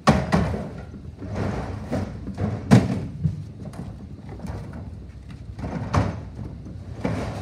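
Plastic wheeled carts and bins being lifted into a box truck's cargo bay, knocking and scraping against the floor and each other: a string of thuds, the loudest about three seconds in.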